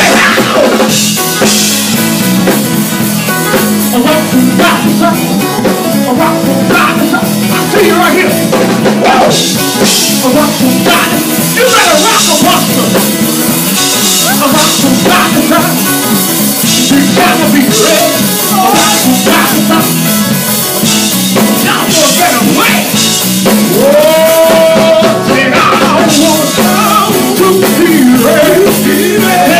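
Live gospel band playing loudly: drum kit with cymbals driving the beat, bass guitar and keyboard, with singing over it.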